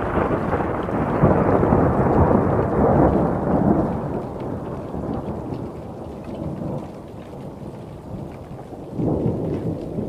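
Rolling thunder: a deep rumble, loudest at first and fading over several seconds, then swelling again briefly near the end.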